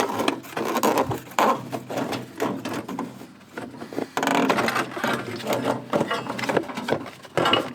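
Busy handling noise of parts being worked by hand: a string of irregular knocks, scrapes and rattles, with a brief lull about three seconds in.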